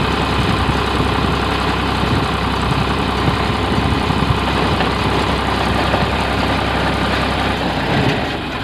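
Eicher 557 tractor's diesel engine running steadily at constant speed, dipping slightly in level near the end.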